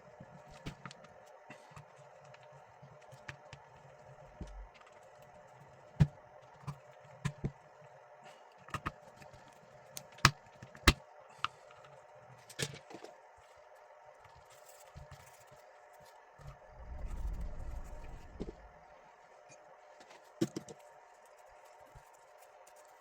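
Sharp clicks and knocks of hard parts being handled and fitted together while a pond air pump is reassembled, over a steady faint hum. A short low rumble comes about three quarters of the way through.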